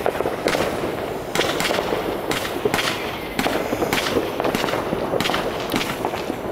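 WECO Stardust compound fireworks battery firing its opening coloured stars in rapid succession: a sharp launch pop from a tube roughly twice a second, over a steady hiss.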